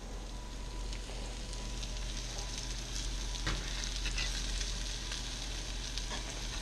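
Speckled sea trout fillets sizzling steadily in a hot cast-iron skillet. A spatula scrapes under them a couple of times around the middle.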